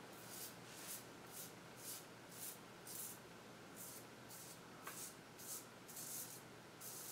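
Merkur 34C double-edge safety razor with an Astra SP blade scraping through lathered stubble in short upward strokes on the cheek: a faint rasp roughly twice a second.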